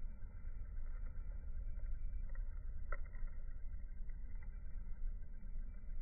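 Steady low rumble of outdoor background noise, with a faint click about three seconds in.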